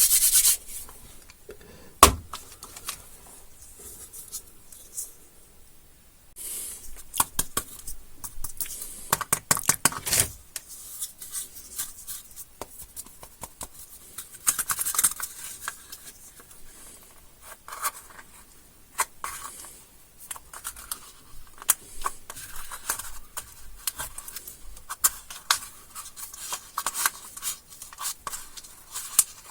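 Plastic candy wrappers and packaging crinkling, crackling and being torn open in a run of sharp clicks and rustles. There is a single loud thump about two seconds in and a quick flurry of crackles near the middle.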